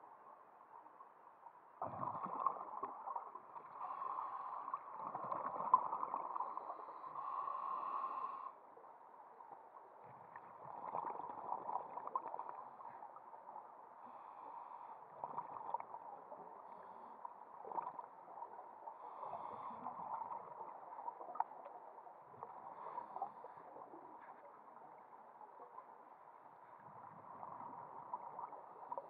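Scuba diver's exhaled bubbles from the regulator, heard underwater: gurgling bursts that come and go every few seconds, the longest lasting several seconds about two seconds in.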